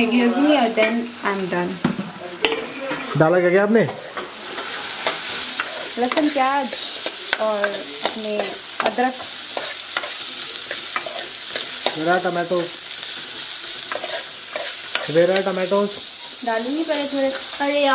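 Chopped onions frying in hot oil in an aluminium kadhai, sizzling as they are stirred for a tempering. The sizzle grows louder about four seconds in, with short stretches of voice over it now and then.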